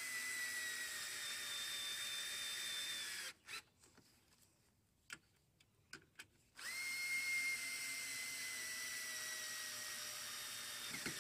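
Cordless drill driving lag bolts into a wooden dock post: a steady motor whine that sinks slowly in pitch as the bolt bites, stops after about three seconds, then starts again a few seconds later with a quick rise and runs steady.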